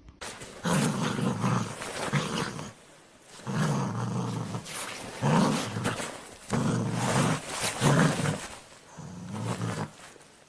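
Dog growling while it plays with a plush toy: a string of rough growls, each about a second long, with short breaks between them.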